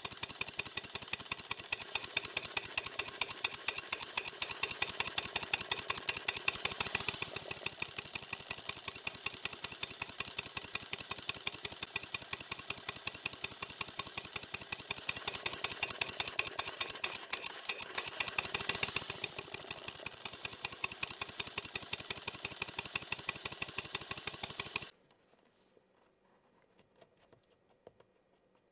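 Model beam steam engine running on compressed air: a fast, even beat of air exhaust puffs and mechanical clatter with hiss, its pace and hiss shifting twice as its working Watt centrifugal governor is disturbed by hand. About 25 seconds in the engine stops abruptly, leaving near silence with a few faint clicks from the governor being handled.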